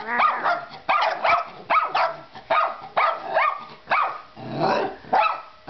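Small dog barking repeatedly at a baby doll, sharp high-pitched barks about two a second.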